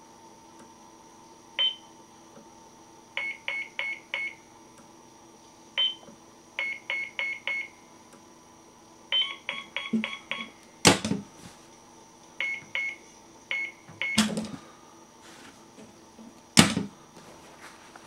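Electronic keypad beeps as buttons on a black appliance are pressed: a few single beeps and several quick runs of four to six beeps. Three sharp knocks from the box being handled come in the second half, the loudest near the end.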